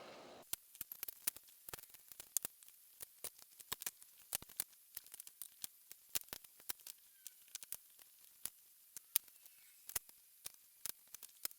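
Rapid, irregular clicks and taps of a knife cutting up a whole raw chicken, the sound sped up along with the footage.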